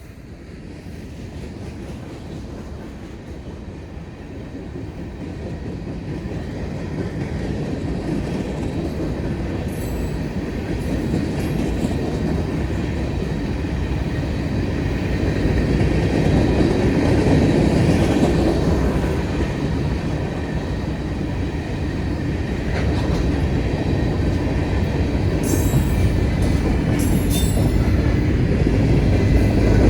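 CSX freight train led by a GE ET44AH diesel locomotive rumbling past, growing louder as it passes. Wheels click over the rail joints, with a few brief high wheel squeals.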